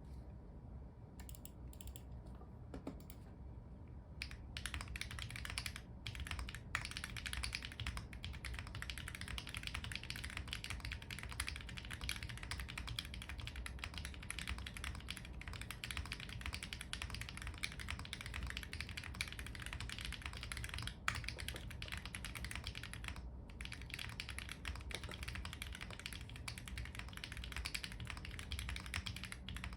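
Typing on a foamless Weikav Record 65% mechanical keyboard with an FR4 plate, lubed and filmed Gateron Baby Kangaroo switches and ABS Cherry-profile keycaps. A few scattered keystrokes for the first few seconds, then fast continuous typing with a short break about 23 seconds in.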